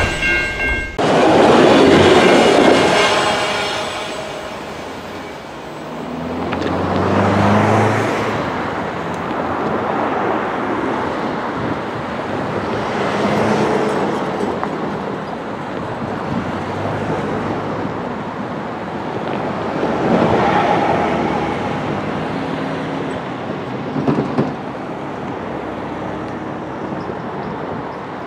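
A freight train of loaded autoracks and other cars rolling over the rails: a brief squeal of steel wheels in the first second, then a continuous rumble of the train moving away that swells and fades several times.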